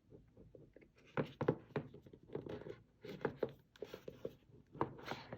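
Rustling and scraping of cardboard and paper packaging as the contents of a freshly opened Apple charger box are handled and lifted out, in a run of short irregular scuffs.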